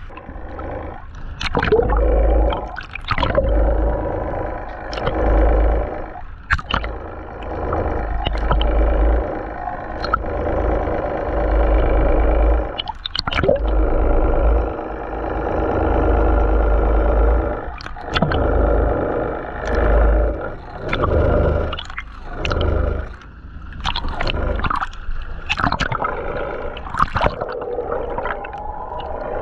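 Water rushing and bubbling over a camera held just under the sea surface, swelling and fading every second or two, with sharp splashes and a steady drone of the boat's engine coming through the water.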